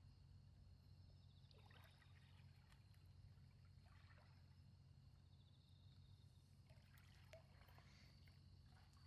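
Near silence: a faint steady low hum, with water lapping softly a few times.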